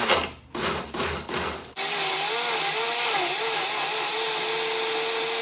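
Countertop glass-jar blender chopping chunks of tomato and onion. It runs in a few short stop-start bursts, then continuously from a little under two seconds in. Its motor pitch wavers as the chunks break up and settles to a steady pitch near the end as the mixture purées.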